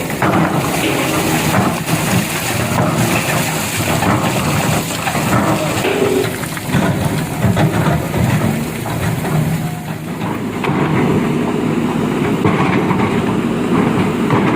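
Dump truck with its diesel engine running while its load of stone slides and rattles out of the tipped bed.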